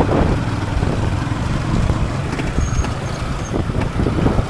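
Motor vehicle running under way, a steady low engine and road rumble.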